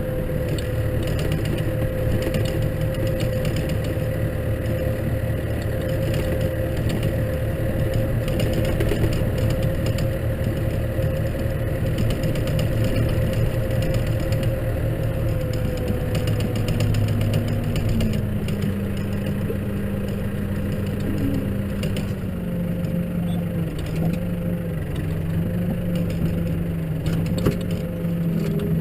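Case tractor's diesel engine running steadily under load while snow ploughing; its note steps down in pitch about two-thirds of the way through.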